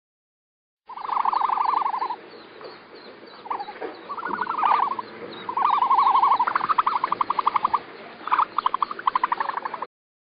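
An animal calling in a series of rapid, pulsed trills, each lasting about a second, with short gaps between them.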